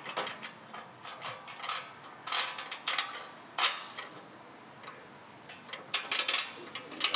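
Irregular metallic clicks and clinks of bolts and a steel bash plate being handled and lined up, with a few quick runs of ticks.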